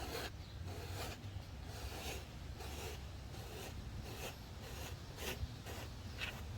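Lilly Brush pet hair remover scraped in repeated short strokes across fabric, roughly two strokes a second, pulling up embedded pet hair. A low steady hum runs underneath.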